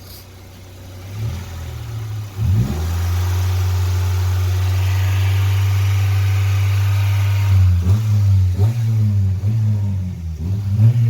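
A car engine running: held at steady, fairly high revs for several seconds, then revved up and down unevenly near the end.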